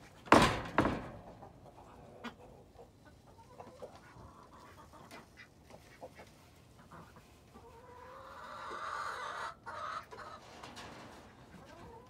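Hens clucking inside a chicken coop, with a longer drawn-out call about eight seconds in. Two loud knocks or scuffs come right at the start.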